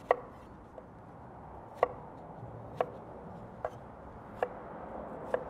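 Chef's knife dicing a Granny Smith apple on a wooden cutting board: six sharp knocks as the blade cuts through onto the board, roughly one a second.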